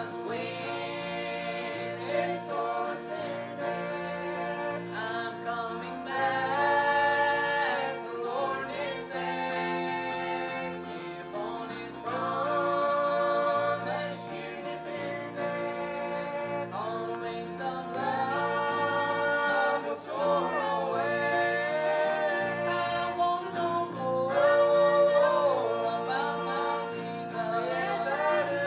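Live gospel music: singing voices with guitar accompaniment over a stepping bass line.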